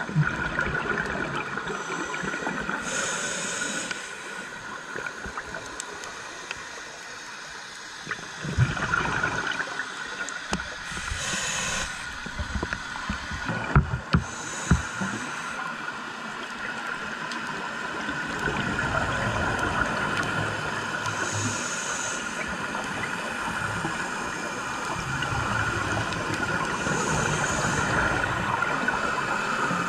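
Underwater sound of scuba diving: regulator exhalations, each a short rush of bubbles, every several seconds over a steady hiss. A few sharp knocks come around the middle.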